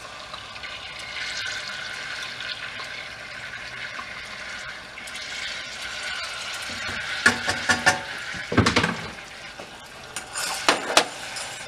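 Minced garlic sizzling gently in melted butter in a pan on low heat, with a utensil clinking and scraping against the pan in two short bursts in the second half.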